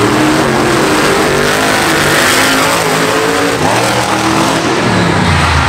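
Two monster truck engines revving hard as the trucks race side by side and jump a row of crushed cars, their pitch rising and falling with the throttle.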